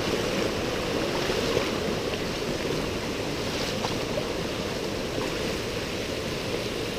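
Rushing river water: a steady, even wash of flowing water.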